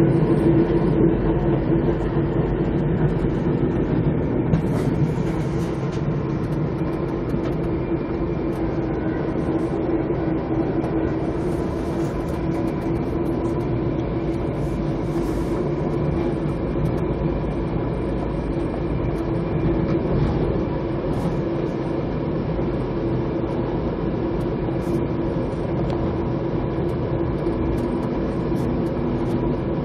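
Passenger train running at speed, heard from inside the coach: a steady rumble with a constant hum and a few faint ticks now and then.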